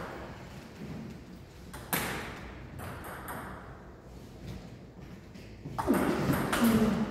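Table tennis ball hits: a sharp single click about two seconds in and a few fainter ones, then a quick run of ball-on-bat and ball-on-table clicks near the end as a rally gets going.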